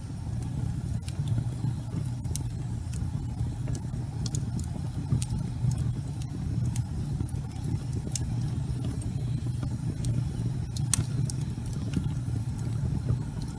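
Wood logs burning in a fireplace: a steady low rumble of the flames with scattered sharp crackles and pops, one louder pop about eleven seconds in.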